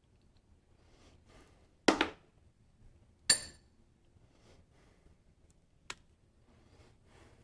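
Metal parts and tools being handled at a milling machine vise, with no spindle running. There is a sharp double clank about two seconds in and a ringing metallic clank over a second later, then a light click near six seconds and faint handling rustles in between.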